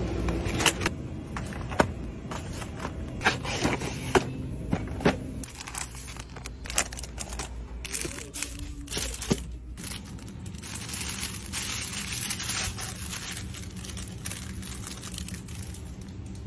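Packaging handled off a shop shelf: cardboard boxes and a plastic-tagged toy knocking and crackling in a string of sharp clicks, thickest in the first five seconds, over a steady low store hum, then a spell of rustling hiss.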